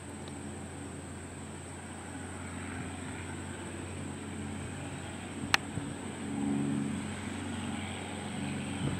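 Engine and propeller of a single-engine light airplane on its takeoff roll, a steady drone that slowly grows louder. A sharp click comes about five and a half seconds in.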